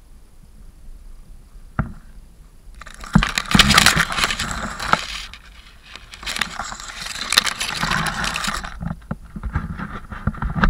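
Loud rustling and scraping right at the microphone, in two stretches of about two and a half seconds each with crackles between: tall grass stalks brushing against the camera as it moves through the grass.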